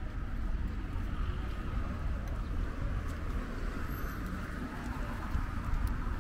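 Street ambience: the steady hum of car traffic on the surrounding roads over a low rumble.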